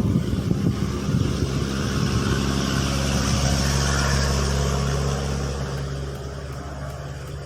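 A motor vehicle's engine running with a steady low hum and a hiss, growing a little louder to about the middle, then fading away toward the end.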